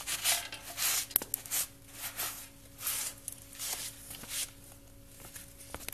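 Hand scrubbing strokes, one about every 0.7 seconds, cleaning oil residue and metal shavings off the pressure washer's engine shaft area, with a couple of sharp clicks. A faint steady hum lies under it.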